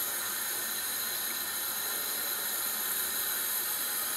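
Water boiling hard in a stainless saucepan of endives on a gas hob: a steady hiss that cuts off suddenly at the end.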